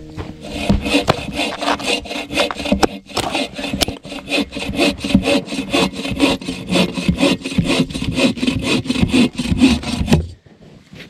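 Hand saw cutting through a firewood log in quick, even push-and-pull strokes, about four or five a second, stopping suddenly near the end.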